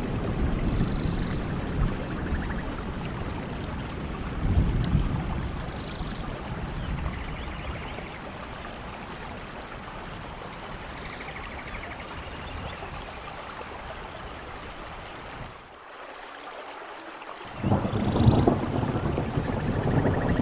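Steady rain with low rolling thunder. The rumble swells briefly about four seconds in, fades through the middle and drops away for a moment, then comes back louder near the end.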